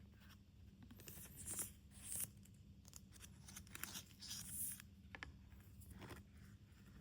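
Packaging being handled and torn open: faint crinkling and ripping in scattered short bursts.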